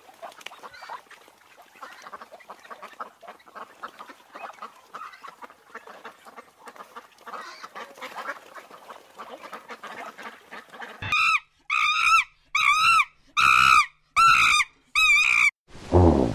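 A flock of mallard ducks chattering with many soft, rapid quacks, then, about eleven seconds in, six loud honking calls evenly spaced about a second apart. A brief low sound comes right at the end.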